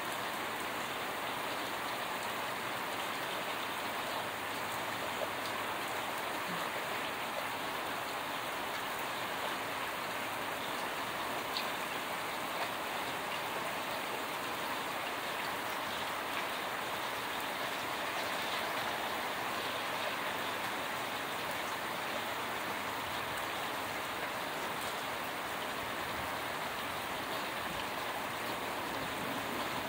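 Steady rain pouring down in a thunderstorm: an even hiss of rain on the ground and street, with a few louder drip ticks scattered through it.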